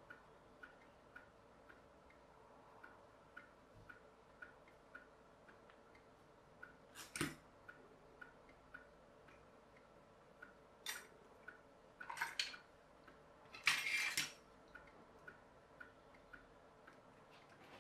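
A clock ticking steadily about twice a second, with a few clatters of metal hand tools and tinplate scraps being handled on a work board, the loudest about seven and fourteen seconds in.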